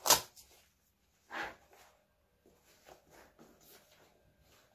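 Handling noise as a hard plastic phone case is pushed into a sling bag: a sharp knock right at the start, a short scraping rustle about a second and a half in, then a few faint clicks.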